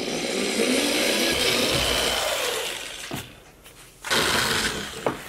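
Power drill boring a stop hole through the polyethylene wall of a water tank at the end of a crack: one run of about three seconds, with the motor's pitch dropping as it slows near the end, then a second, shorter run about four seconds in.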